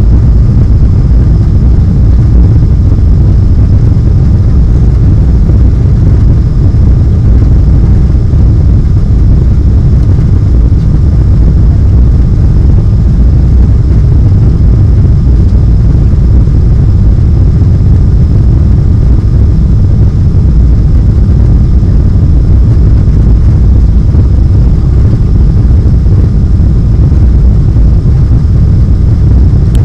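Steady cabin roar of a Boeing 777 in flight just after takeoff: engine and airflow noise heard from inside the cabin, deep and even throughout, with a faint steady high whine above it.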